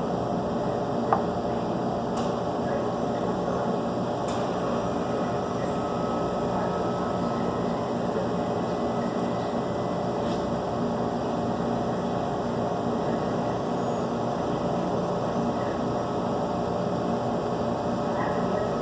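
A steady mechanical hum of ventilation or refrigeration equipment, with a few faint clicks.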